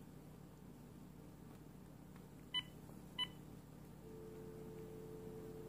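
Two short electronic beeps about half a second apart, followed a second later by a faint steady electronic tone that keeps on, over quiet room noise.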